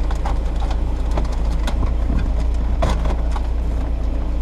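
Small plastic clicks and knocks of a car radio and its dash trim being pushed back into the dashboard, with a firmer knock about three seconds in, over a steady low rumble.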